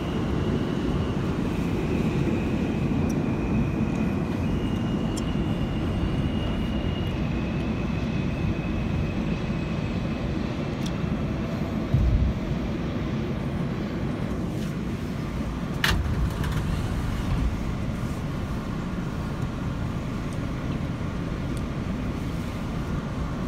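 Interior of an R160A subway car: steady low rumble of the train with a high electric whine that steps between two pitches over the first ten seconds. A low thud comes about halfway through, then a sharp click a few seconds later.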